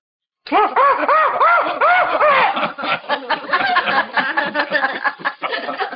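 A young girl laughing: a quick run of rising-and-falling 'ha' syllables starting about half a second in, then looser, choppier laughter.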